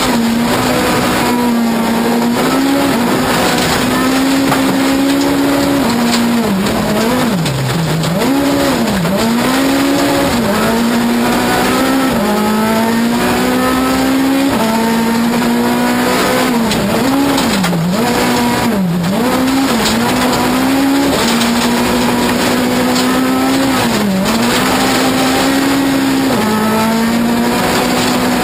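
Ford Fiesta S2000 rally car's naturally aspirated 2.0-litre four-cylinder engine running hard at high revs, heard from inside the cabin. Its pitch dips sharply and climbs back again and again as the driver shifts gear and lifts for corners. Steady tyre and gravel noise runs underneath.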